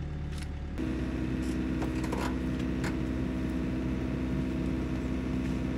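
Excavator's diesel engine running steadily, stepping up to a higher, slightly louder note about a second in, with a few faint clicks over it.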